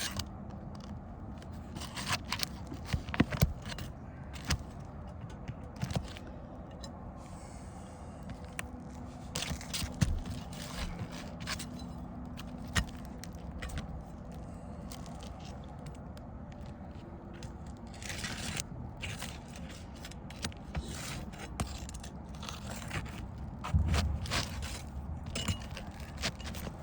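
Asphalt roof shingles being worked loose and scraped, with scattered clicks and knocks and a short louder scrape about two-thirds of the way through.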